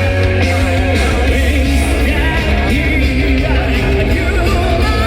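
Metal music playing loud and steady: a singer's voice over dense guitars, bass and drums.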